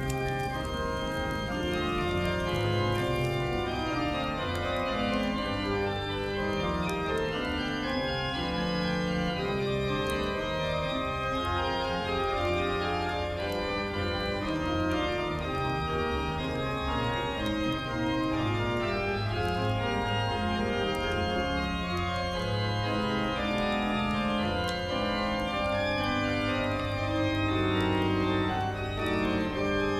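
Instrumental music: sustained organ-like keyboard chords changing slowly over a steady low bass note.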